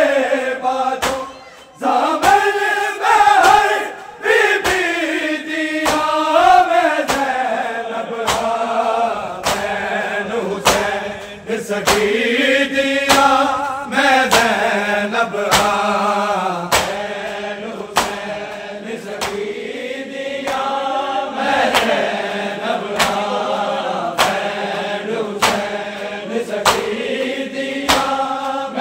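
Punjabi noha (lament) sung by a group of male reciters and a large crowd of mourners in chorus. Running under it is a steady beat of sharp slaps, a little over one a second: the mourners beating their chests (matam) in time.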